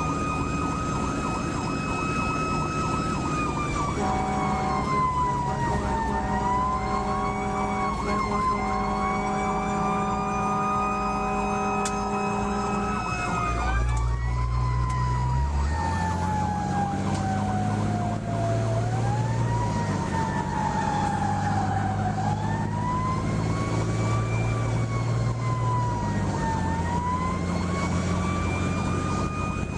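A fire truck's siren wails, gliding slowly up and down in pitch. The truck's engine runs steadily underneath, its note stepping to a new pitch a few times.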